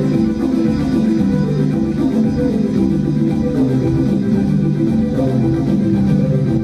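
Live instrumental music: a steady, repeating flow of plucked-sounding melodic notes, stepping in pitch, with no vocals.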